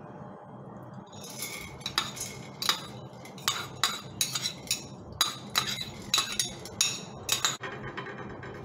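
Metal spoon clinking and scraping against a stainless steel pot and a plate as washed barley grains are tipped and scraped into the pot: a quick, irregular run of sharp clinks that stops shortly before the end.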